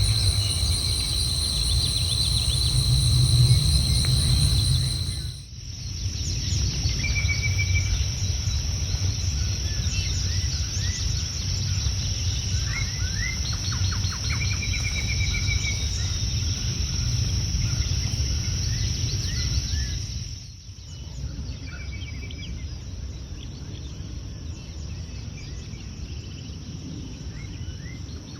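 Outdoor nature ambience: birds chirping and trilling in short phrases over a steady high insect drone and a low rumble. The background changes abruptly twice.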